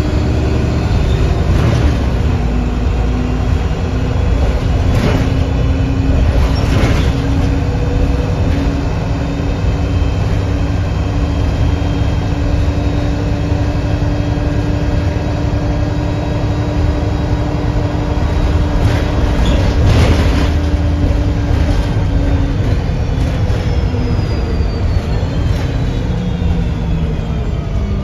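Interior of a 2008 Nova Bus LFS city bus under way: a steady drivetrain drone with a whine running through it, plus road noise. A few knocks and rattles sound over bumps, and the whine falls in pitch near the end.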